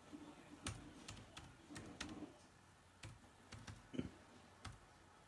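Faint, irregular clicks and light taps of typing on a computer keyboard, about ten keystrokes spread unevenly.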